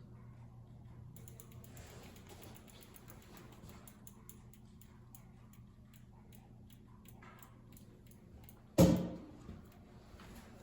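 Light, irregular ticking and clicking from hands-on work on a bicycle's brake, then one loud knock near the end.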